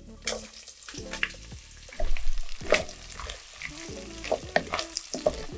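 Chopped vegetables going into a pot of frying bacon and olive oil and being stir-fried with a wooden spatula: a frying sizzle with repeated scraping and tapping of the spatula against the enamel pot.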